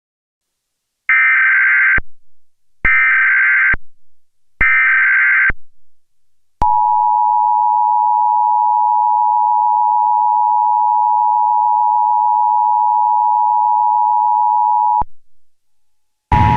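Emergency Alert System broadcast tones: three bursts of SAME header data, about a second each and evenly spaced, followed by the two-tone EAS attention signal held steady for about eight seconds.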